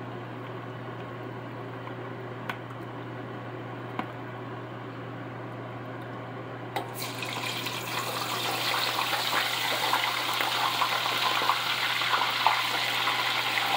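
Smashed plantain pieces, wet from salt water, going into a pot of hot oil for their second fry: the oil sizzles and crackles, starting suddenly a little over halfway through and growing louder. Before that only a steady low hum and two light clicks.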